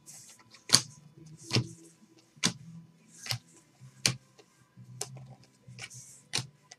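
Stiff Bowman Chrome football cards being handled and flipped one at a time: a sharp click about once a second, seven in all, with soft swishes of card sliding on card between them.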